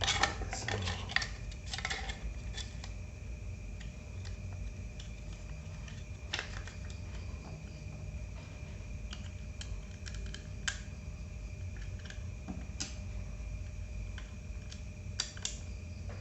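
Scattered light clicks and taps of small metal and plastic laptop parts being handled, as the drive mount is moved from the old hard disk onto the new SSD, over a steady faint hum.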